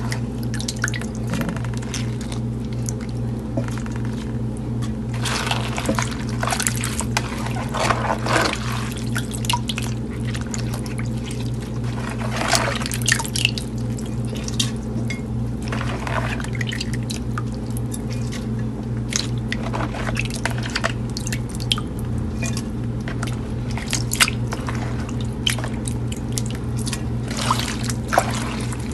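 Hands sloshing through pickled mustard greens in a plastic basin of vinegar brine: water splashing and dripping in irregular spurts as wet pieces are lifted out. A steady low hum runs underneath.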